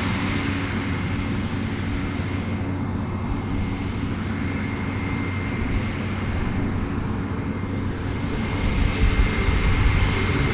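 New Holland CR11 combine harvester running at work, a steady engine drone with a thin, constant high whine, growing louder and rougher near the end.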